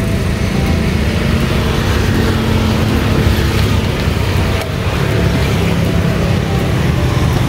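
Steady motor-vehicle engine noise from road traffic: a loud, continuous low rumble.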